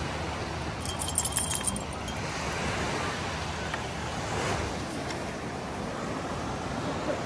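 Steady wash of ocean surf and wind, with a brief high metallic jingling about a second in.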